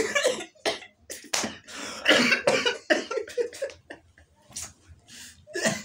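Two men laughing hard in short, broken bursts with breathy gasps between them.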